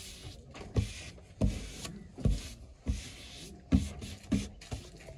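A steady series of dull knocks, about three every two seconds, with a rustling hiss between them.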